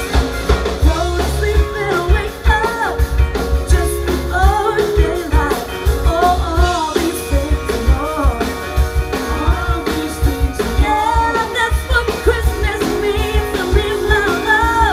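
Live rock band playing: a vocalist singing over drums, electric guitar and keyboard, with a steady beat.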